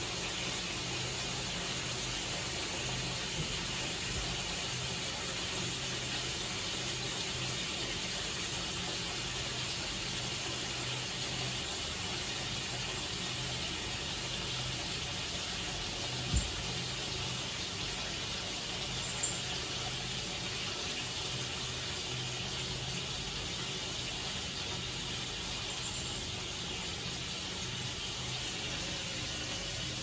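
Water running into a filling bathtub: a steady rushing splash, with one brief knock about halfway through.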